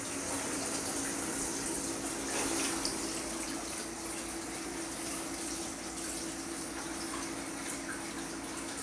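Steady rush of running water in a small indoor pool, with a steady low hum under it.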